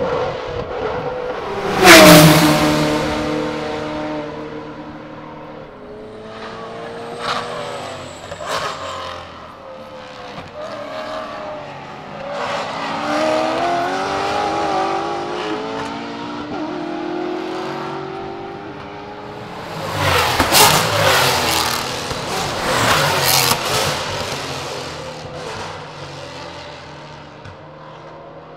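Maserati GranTurismo MC GT4 race car's 4.7-litre V8 passing at speed about two seconds in, its pitch dropping sharply. It then accelerates away in the distance, rising in steps through the gears. A second loud pass comes about twenty seconds in, with sharp cracks, before the engine note fades away.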